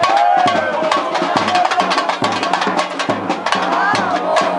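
Street-carnival percussion group playing a fast rhythm: tamborims rattled with sticks over the deep beats of a surdo bass drum struck with a mallet, with voices singing and shouting along.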